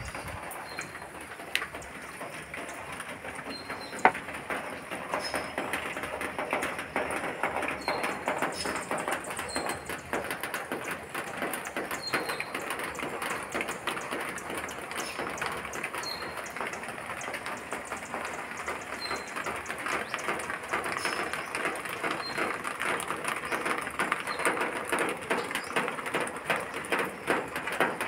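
Steady crackling patter, typical of rain falling on broad banana leaves and foliage, with a bird's short high call repeating about once a second. There is a single sharp click about four seconds in.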